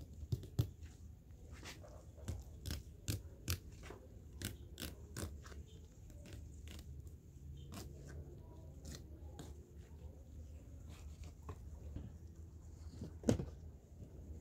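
Fillet knife cutting and scraping along a large rainbow trout's bones while filleting, making a run of sharp crunching clicks over the first six seconds, then sparser and quieter. There is a single louder knock near the end.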